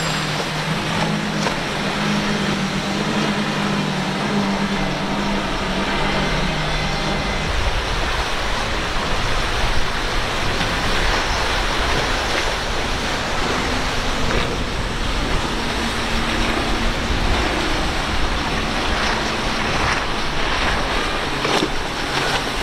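Outboard-powered boats running at speed through rough inlet water. A steady engine drone is plain for the first seven or eight seconds, then mostly gives way to a continuous rush of water spray and wind.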